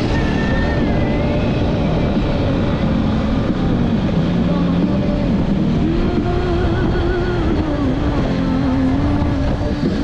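Motorcycle engine running steadily while riding along a dirt road, its note wavering a little, over a dense rumble of road noise.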